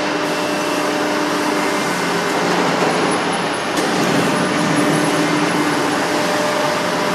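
Ironworker machine's motor running steadily, a constant low hum over mechanical noise, with one short click a little under four seconds in.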